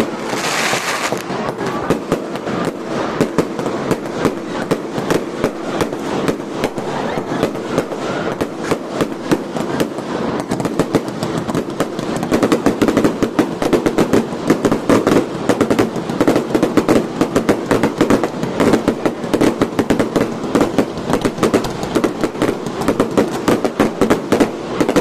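Fireworks crackling: a dense, continuous run of rapid sharp pops, many a second, with a short hiss at the start, growing louder about halfway through.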